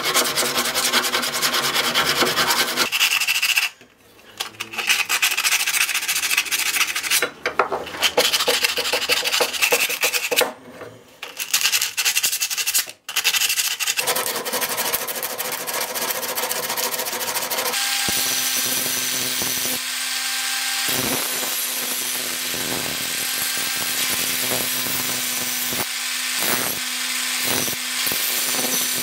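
Steel lawn mower blade being sharpened: abrasive grinding against the metal in long passes with a few short breaks, then steadier grinding with a constant motor hum underneath in the second half.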